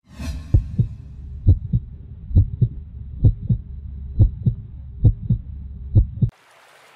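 Heartbeat sound effect: seven evenly paced lub-dub double thumps, a little under one a second, over a low steady hum, stopping suddenly near the end. A short whoosh opens it.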